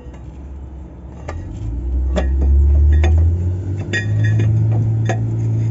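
Steel parts and tools clinking during work on a Caterpillar 950G wheel loader's parking-brake drum: about half a dozen sharp metallic clinks with a brief ring. Under them runs a low rumble that grows louder about two seconds in.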